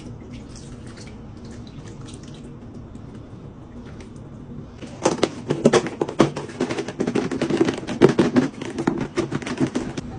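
Plastic food storage container of marinated chicken legs being handled. Quiet, with a few small clicks at first, then about five seconds in a dense run of irregular plastic knocks and rattles as the lid is pressed on and the container is worked. These stop near the end as the lid is lifted off.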